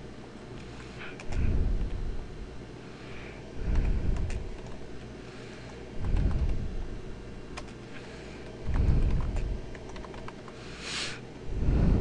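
Computer keyboard typing: scattered single key clicks. A low, muffled rumble swells about every two and a half seconds and is louder than the keys.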